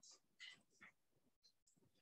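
Near silence, with three faint, brief sounds in the first second.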